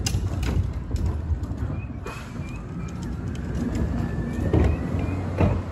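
Garbage truck running on collection: a steady engine rumble with several clanks and bangs, and a faint whine that slowly rises in the middle.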